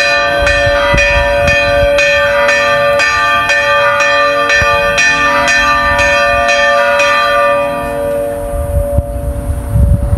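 Church bells ringing, struck about twice a second, stopping about seven and a half seconds in and dying away. Wind buffets the microphone near the end.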